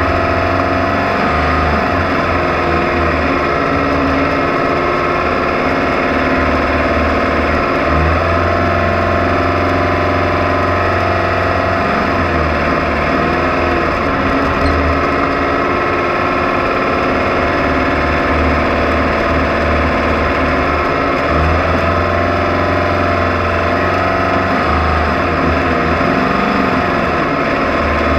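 Off-road race car's engine running hard without a break, its pitch wavering now and then.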